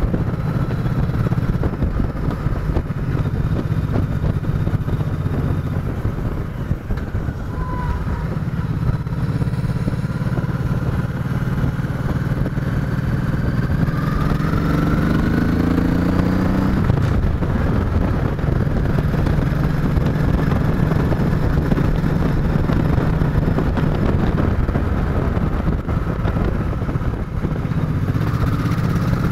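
Chopper motorcycle's engine running steadily on the road. About halfway through, the engine revs up, its pitch climbing for a few seconds, then it settles back to a steady note.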